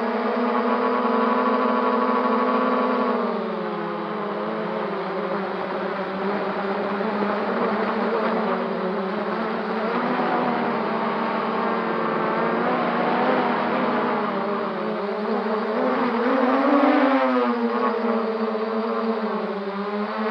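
Quadcopter (MJX Bugs 3) brushless motors and propellers whining steadily. The pitch drops about three and a half seconds in, then rises and falls again with the throttle near the end.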